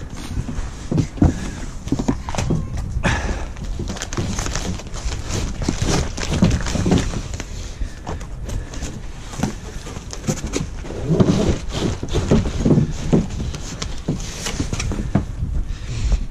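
Large corrugated cardboard box being handled and shifted on wooden decking: irregular rustling, scraping and dull knocks of the cardboard, mixed with footsteps on the deck boards.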